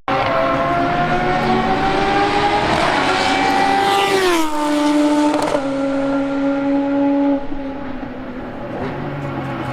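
Race car engine going by on track: its note climbs steadily, drops sharply about four seconds in, holds a lower pitch, then fades after about seven seconds.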